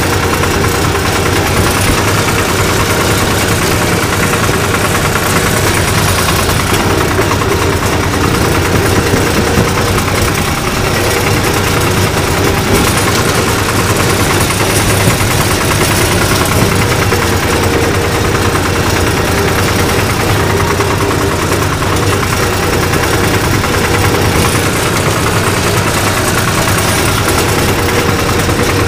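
Diesel engine of a 1974 Long 350 farm tractor running steadily at an even speed.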